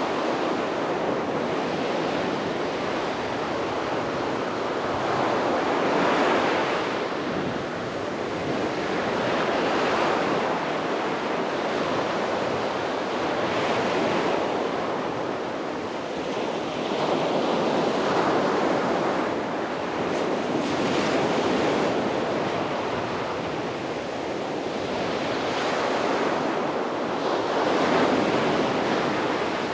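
Sea waves breaking and washing on a beach, a steady surf hiss that swells roughly every four seconds as each wave comes in, with some wind on the microphone.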